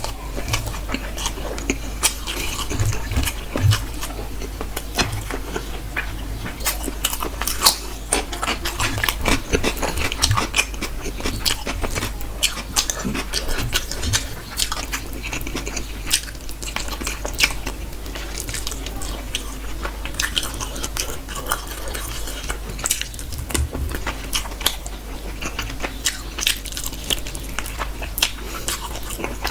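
Close-miked eating: a person chewing and biting food, with many irregular wet clicks and smacks of the mouth.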